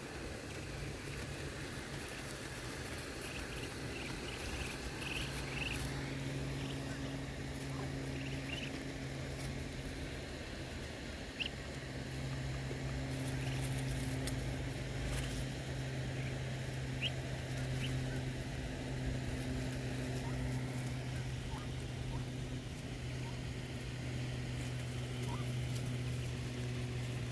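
Muscovy ducklings giving short, high peeps now and then while they peck at feed, over a steady low hum.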